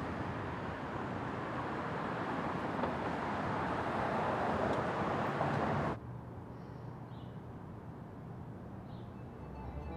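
Street traffic noise swelling slowly as a vehicle draws near, cut off abruptly about six seconds in. A much quieter low hum follows, with a few faint high chirps.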